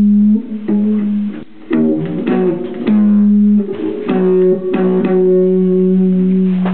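Guitar being played: a run of plucked notes and strums, then a long held low note through the second half.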